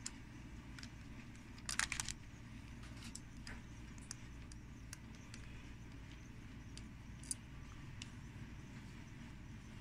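Small precision screwdriver turning the tiny screws in the plastic base of a mesh nebulizer: faint clicks and ticks of metal on screw and plastic, with a short cluster of rattling clicks about two seconds in, over a steady low hum.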